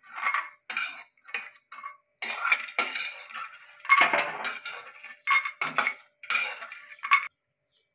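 Metal spatula scraping and clinking against a non-stick kadhai while scooping out roasted cashews and almonds, with the nuts clinking into a small steel bowl. A string of short, irregular scrapes and clinks that stops near the end.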